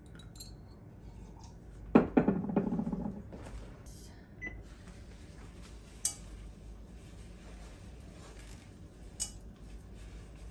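Cookware being handled on a glass-top stove. About two seconds in there is a loud clatter with a scrape that lasts about a second. After it come a few light clicks as oil is wiped around inside a ceramic saucepan.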